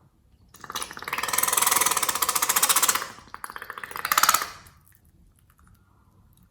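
A loud, rapid buzzing rattle of air being forced out in two bursts: the first about two and a half seconds long, then after a short dip a second of about a second and a half that ends suddenly.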